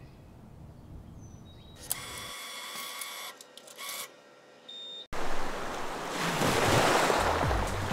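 Cash machine's note slot whirring and clicking as it takes in a banknote. The sound cuts off abruptly about five seconds in, followed by the rush of sea waves.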